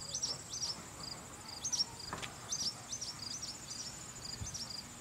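Small birds giving repeated sharp alarm chirps in quick groups of two or three, the calls of birds mobbing intruders near their nest, over a steady high insect drone.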